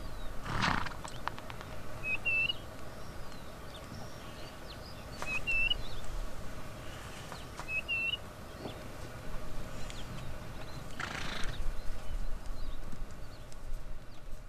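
Plains zebras giving two short, noisy blasts, one about a second in and a longer one near the end, with a few faint clicks. Between them a bird repeats a short rising chirp three times, evenly spaced.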